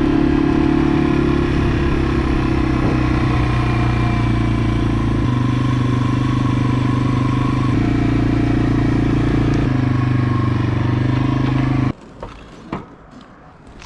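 Yamaha TW200's single-cylinder four-stroke engine running while the motorcycle is ridden, its note holding steady and stepping to a new pitch a few times. The engine sound stops abruptly near the end, leaving a few faint clicks.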